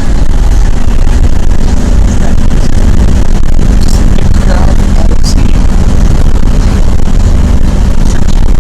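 Interior noise of a moving school bus: a loud, steady engine and road rumble with a low hum, nearly filling the recording, with faint voices over it.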